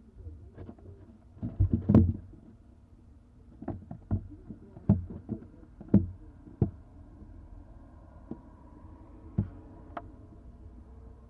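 Irregular knocks and thumps on the wooden barn owl nest box: a heavy cluster a couple of seconds in, then scattered single knocks, the last two near the end.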